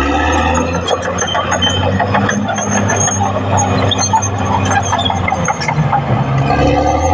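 Caterpillar D6R XL bulldozer's diesel engine running steadily, with frequent short metallic clanks and brief high squeaks over it.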